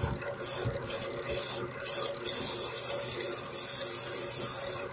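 An electric motor spinning a black knife handle on a shaft, with a steady hum. Over it, loud hissing starts and stops several times.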